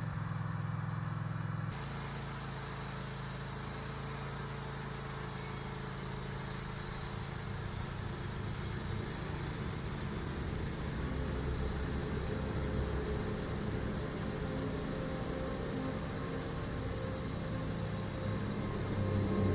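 Wood-Mizer LT15 sawmill's engine running steadily just after a key start. About two seconds in, a steady high hiss joins the engine and continues.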